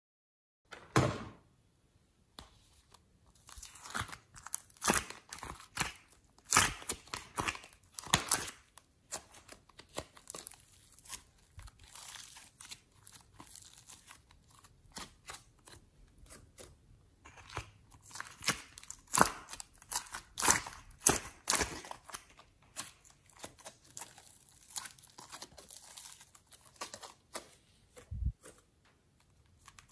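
Slime being stretched, squeezed and pressed by hand, giving dense, irregular sticky clicks and pops that start about a second in.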